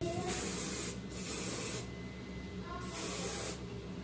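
A handheld spray can hissing onto hair in three short bursts, each under a second long.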